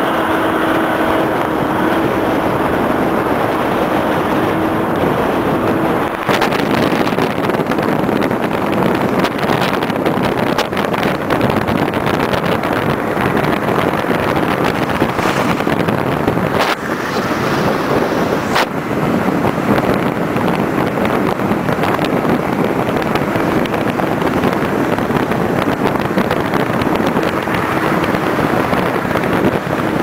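Steady road and wind noise inside a moving vehicle at speed, with a faint steady tone for the first few seconds and a few brief knocks past the middle.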